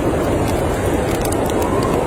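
Storm wind blowing steadily while a wood fire in a fireplace crackles with frequent small pops.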